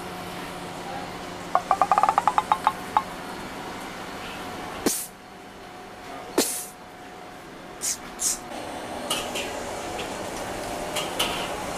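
Food-stall kitchen clatter over a steady hum: a quick run of about ten light metallic clinks, like utensils on metal trays, then two sharp hissing bursts and a few shorter ones.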